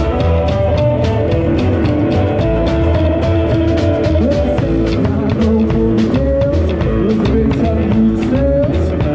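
Live rock and roll band playing an instrumental break: a lead guitar with bent notes over bass and a steady drum beat.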